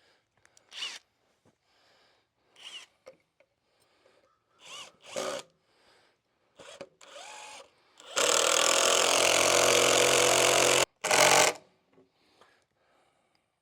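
Power drill boring into hard oak: one run of about three seconds that cuts off, then a brief second burst. Scattered faint handling knocks come before it.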